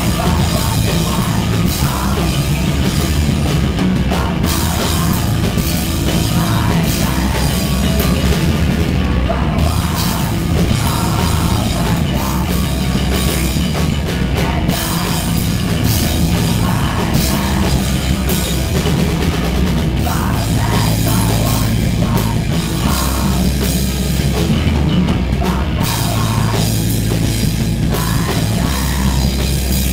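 Crust punk band playing live and loud: electric guitar and drum kit, with screamed vocals into a microphone near the end.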